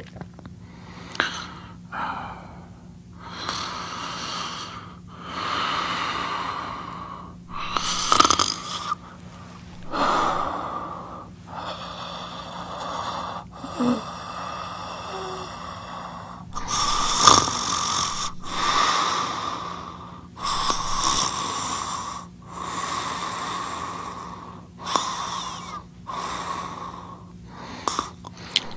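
Loud snoring with wheezing breaths, in and out, one every second or two. A whistling wheeze holds for several seconds in the middle.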